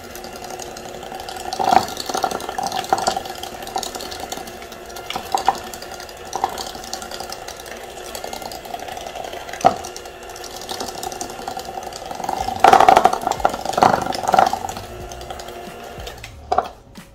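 Electric hand mixer beating cake batter in a bowl, its motor running steadily with occasional knocks of the beaters against the bowl, then switched off near the end.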